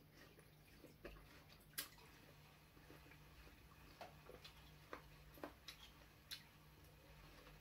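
Faint, irregular clicks of an eating utensil against a bowl, about seven of them, over a low steady hum.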